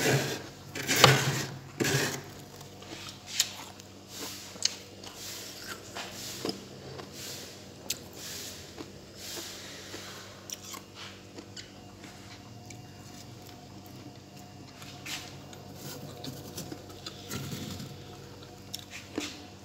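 Freezer frost being scraped: irregular crunching and scratching with sharp clicks, loudest in the first two seconds and sparser after, over a faint steady hum.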